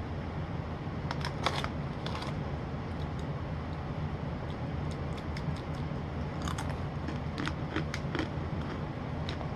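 Crunching on a hard pretzel: a few scattered short crunches and clicks over a steady low hum.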